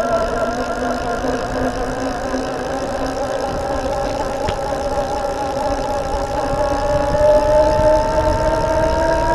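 Geared e-bike hub motor (36 V, 350 W, planetary reduction) whining under power while riding, the tone rising slowly as the bike gathers speed. The hum is the one the owner cannot place: the planetary gearbox or the motor itself going into resonance.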